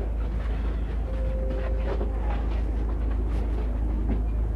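Passenger train running, heard from inside the carriage: a steady low rumble of the wheels on the track with scattered light knocks, and a brief steady tone about a second in.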